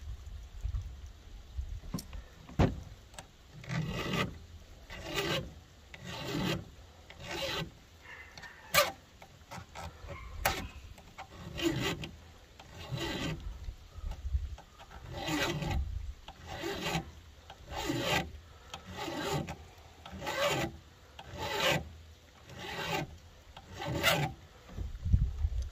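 Flat file rasping across the rakers (depth gauges) of a chainsaw chain in slow, even strokes, about one a second, to lower the raker depth. A few sharp clicks come in the first half.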